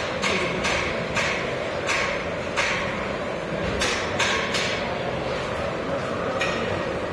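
Irregular sharp knocks, about ten, echoing in a large hall over a steady hum of hall noise; most come in the first five seconds.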